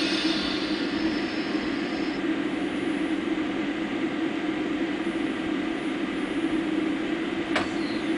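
Push-pull passenger train of double-deck coaches rolling slowly past, a steady rumble of wheels on rails. A high squeal dies away about two seconds in, and there is a brief click near the end.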